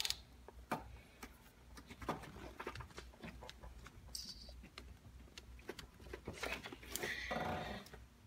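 Faint scattered clicks and tool noise from a hand wrench turning a Ford 5.4L 3-valve camshaft phaser bolt, the torque-to-yield bolt being stretched an additional 90 degrees past its 30 ft-lb torque, with a slightly louder stretch of handling about seven seconds in.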